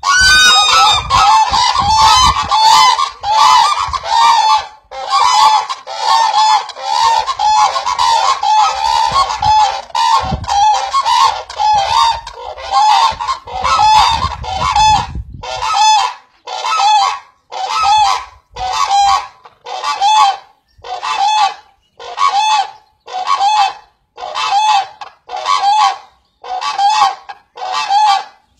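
Cranes calling with loud, honking trumpet-like calls. For about the first half the calls overlap densely, as from several birds. After that they come as evenly spaced single calls, a little more than one a second, until they stop near the end.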